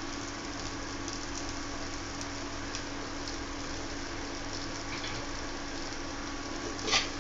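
Potato pieces frying in hot mustard oil in a steel kadai, a steady, even sizzle, with a faint steady low hum underneath.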